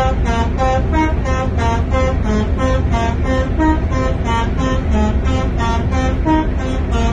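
A musical vehicle horn playing a quick melody of short notes, about three a second, with the pitch changing from note to note, over a steady low engine rumble.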